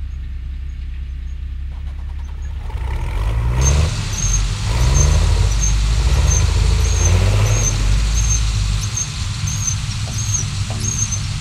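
Engine of heavy harvest machinery running, revving up about three seconds in with a rising pitch, with a high squeak repeating about twice a second.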